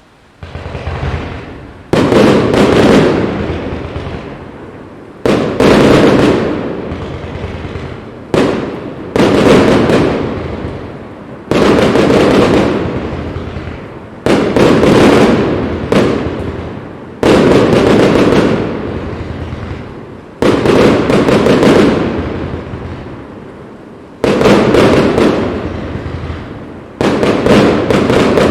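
Fireworks display: aerial shells bursting about a dozen times, two to three seconds apart, each a sudden bang followed by a long rumbling echo that dies away over a couple of seconds.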